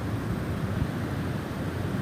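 Snowstorm wind blowing as a steady, deep rush.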